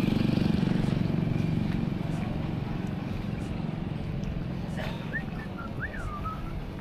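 A motor vehicle passing on the street, loudest at the start and fading away. A few short high chirps come about five seconds in.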